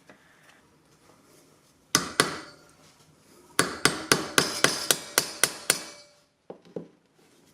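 Hammer striking a brass rod being shaped into a buckle ring: two blows, then a quick run of about ten blows at roughly five a second, each with a short metallic ring.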